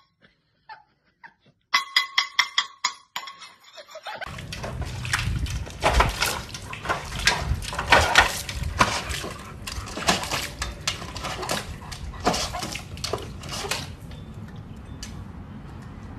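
A large white dog splashing its front paws in a stainless steel water bowl: a run of splashes in the water, easing off about two seconds before the end. Before it, a short series of sharp clicks in the first few seconds.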